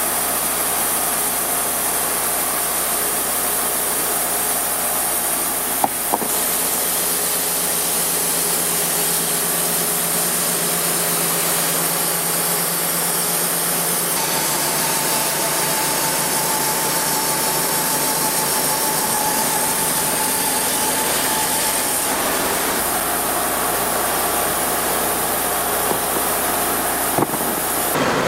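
Portable band sawmill running steadily, its engine and blade going without a break, with two brief knocks, about 6 seconds in and near the end.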